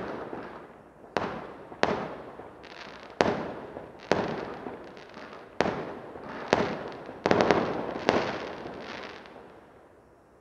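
Aerial firework shells bursting: a string of about ten sharp bangs, roughly a second apart with a quick cluster about seven seconds in, each dying away over a second or so. The bursts stop and the sound fades out near the end.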